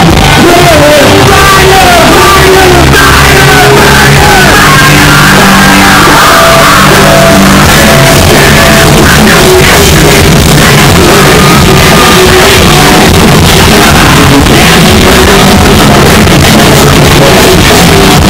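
Alternative metal band playing live rock: distorted electric guitar, bass guitar and drums with a singer's vocals. It is loud throughout.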